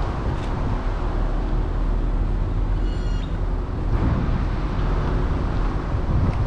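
Motorcycle engine running steadily at low speed.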